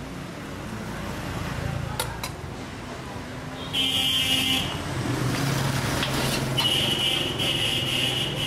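Street traffic running steadily with a low engine drone. A high-pitched vehicle horn beeps for about a second about four seconds in, then again near the end in two longer beeps.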